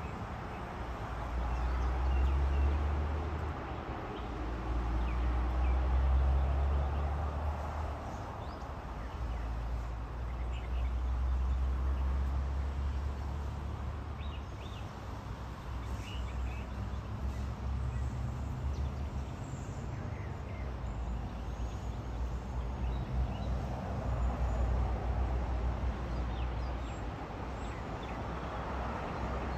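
Outdoor ambience: a low rumble that swells and fades every few seconds, with faint, scattered high chirps.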